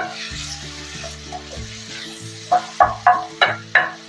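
Wooden spatula stirring chopped tomatoes, onions and spices frying in oil in a metal kadai, with a soft sizzle, over background music with steady notes. About two and a half seconds in comes a quick run of five scrapes of the spatula against the pan.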